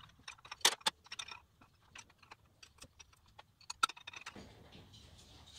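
Irregular light metallic clicks and clinks of hand tools being worked under the hood, with a couple of sharper taps.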